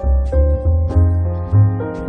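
Background music: piano or keyboard melody over a steady bass beat.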